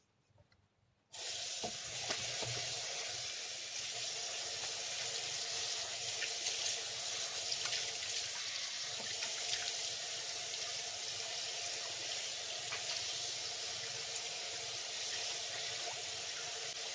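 Bathroom sink tap turned on about a second in, water running steadily into the basin with small splashes as a face is rinsed under it.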